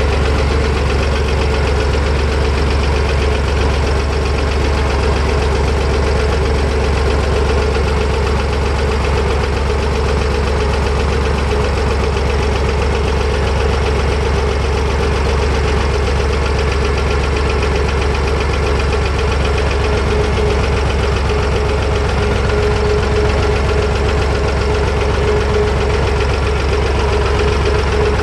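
Fendt Farmer 2 DE vintage tractor's diesel engine running steadily while the tractor is driven, heard from the driver's seat.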